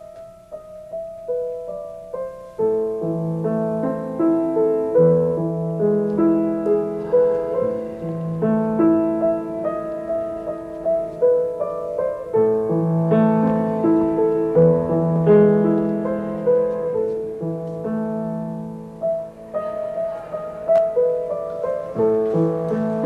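Solo piano playing a slow, gentle classical-style piece in held notes and chords. It starts sparse and fills out about two and a half seconds in.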